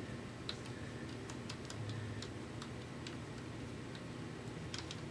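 Faint, irregular light clicks and ticks, about a dozen, from the banjo's metal tension hooks and nuts being handled.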